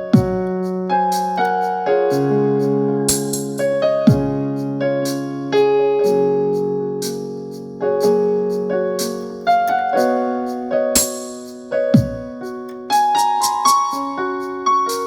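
Keyboard in a piano voice playing a melody over sustained chords, with a deep falling bass hit a few times.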